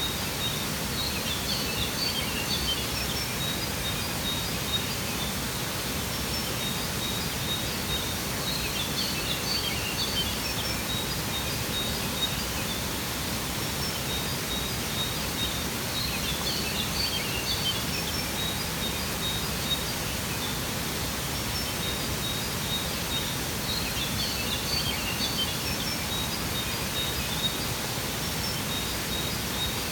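Steady rush of a waterfall, with small birds chirping and trilling in short bursts that come back about every seven or eight seconds.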